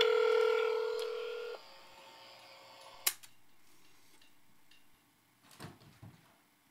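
Telephone line just after the call is hung up: a steady two-pitch tone for about a second and a half, then a sharp click about three seconds in and a couple of faint knocks near the end.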